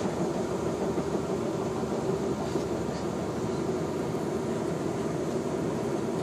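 Steady rumble and hum of a moving passenger train heard from inside the carriage.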